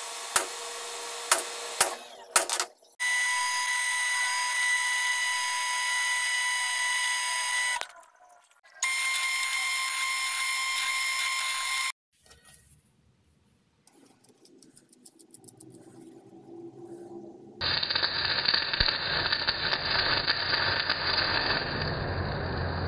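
A few sharp ticks as a steel plate is marked out. Then an electric drill whines steadily as it bores through the steel plate, in two spells. Near the end comes the dense, even crackle of welding a nut onto the plate.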